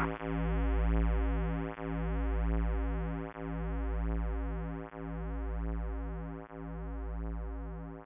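Electronic synthesizer music: a deep synth bass note swelling and cutting off about every second and a half, under a steady chord that pulses several times a second, slowly fading out.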